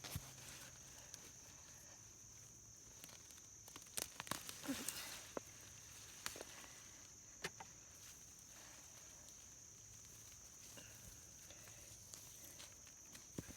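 Faint, scattered scrapes and knocks of digging in garden soil to unearth sweet potatoes, with a steady high insect trill behind.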